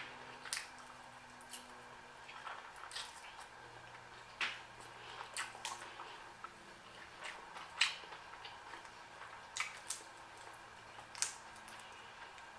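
Close-up eating sounds of shrimp and noodles: wet mouth smacking and chewing, heard as a dozen or so short, sharp clicks at irregular intervals.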